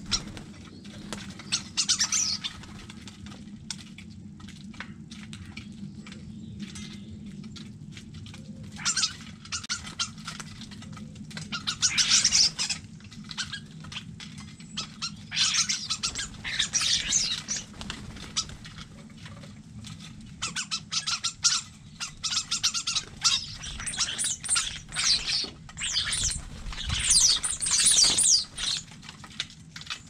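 Common starlings squawking and chattering in repeated bouts of harsh calls and clicks, with wing flaps as birds come and go at the feeder. The bouts grow busier in the second half.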